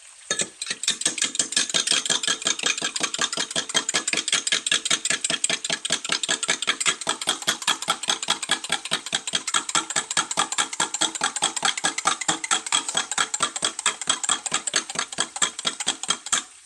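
A fork whisking eggs in a glass measuring cup: a fast, even run of clicking strokes as the tines strike the glass. It starts about half a second in and stops just before the end.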